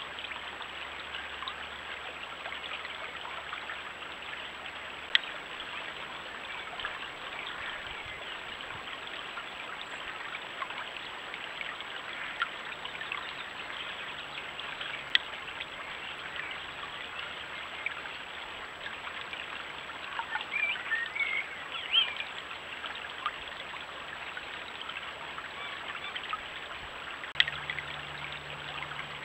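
Shallow stream running steadily over stones, a constant even rush of water. Three sharp clicks stand out, about 5, 15 and 27 seconds in, and there is a short cluster of louder, higher sounds around 20 seconds in.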